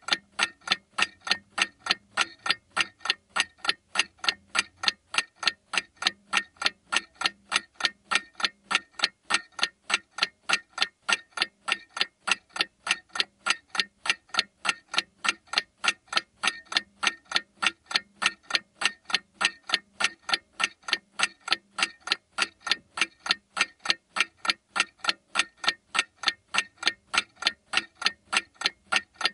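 Rapid, perfectly even clock-like ticking, about three ticks a second, running unbroken throughout.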